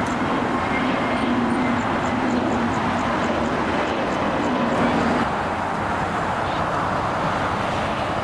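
Jet airliner engines, a steady rushing noise with a faint low hum that fades about five seconds in.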